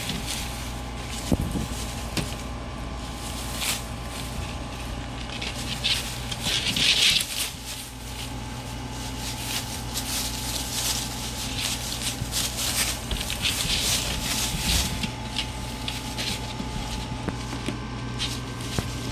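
Shredded newspaper bedding rustling and crinkling as Rottweiler puppies move and dig through it, in uneven bouts, loudest about seven seconds in. A steady low hum sits underneath.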